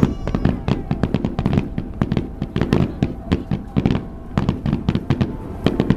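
Aerial fireworks bursting in quick succession: many sharp bangs and crackles close together, with a low rumbling echo between them.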